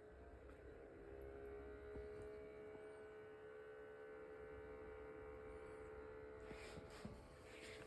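Ailinke humidifier making a faint, steady humming whine, a few pitches held together. A couple of faint clicks come near the end.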